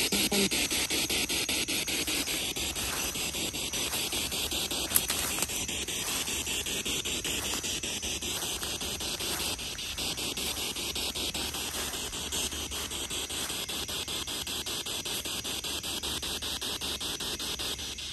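Spirit box radio scanner sweeping through stations: a steady hiss of static chopped by rapid, even clicks as it jumps from channel to channel, with one sharp click about five seconds in.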